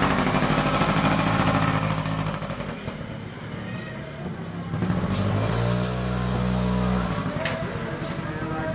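A small engine running, heard in two stretches: strongest in the first two seconds, then fading, then swelling again from about five to seven seconds in.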